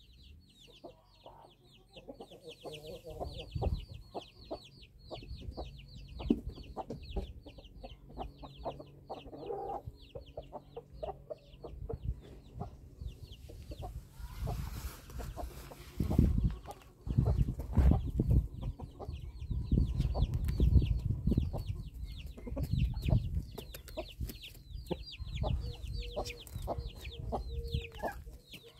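Domestic chickens: chicks peep quickly and without a break, and hens give low clucks now and then. Close knocks and rustles from birds scratching and pecking at the ground come in over the second half.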